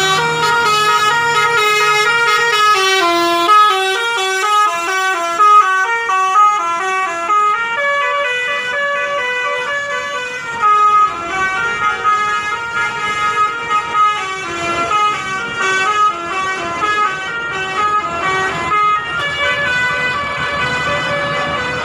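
Indonesian bus 'telolet' musical air horns playing fast tunes of short stepped notes, several horn melodies overlapping, with a few louder blasts.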